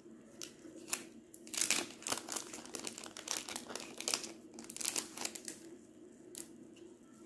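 Clear plastic wrapper crinkling as it is handled and peeled off a small pack of cards. The crinkling is busiest from about a second and a half in until about five and a half seconds, then thins to a few crackles.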